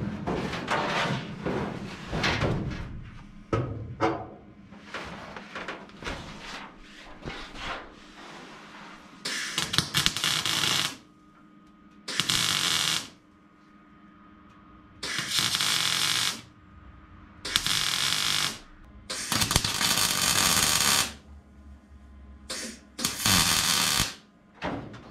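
Welding steel bracing struts onto a car body: from about nine seconds in, seven bursts of welding hiss of one to two seconds each, cutting in and out abruptly. Before them come irregular knocks and clanks of metal parts being handled and set in place.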